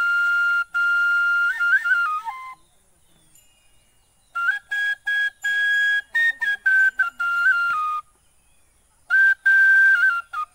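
Bamboo bansuri flute played in three short phrases of held notes that step up and down in pitch, with short pauses between the phrases.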